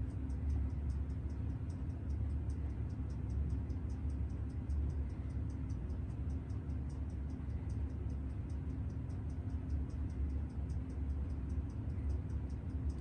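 Steady, rapid light ticking, about four ticks a second, over a low steady hum.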